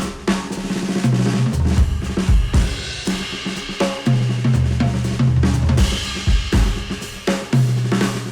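Instrumental music led by a drum kit (snare, kick and cymbals) over a bass line, played back through headphones and picked up by measurement microphones.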